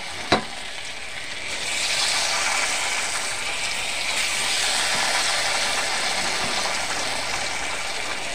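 Dal-batter pakoras sizzling as they deep-fry in hot oil in a steel kadhai, a steady crackling hiss that grows louder about two seconds in as more batter goes into the oil. A single short click near the start.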